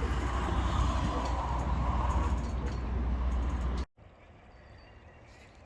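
Steady low rumble of a car driving, heard from inside the cabin. About four seconds in, it cuts off abruptly to a much quieter background.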